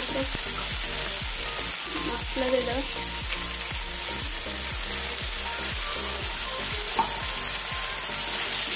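Diced vegetables sizzling in hot oil in a kadhai while a steel spatula stirs and scrapes them in quick, repeated strokes, with a sharper knock of the spatula against the pan near the end.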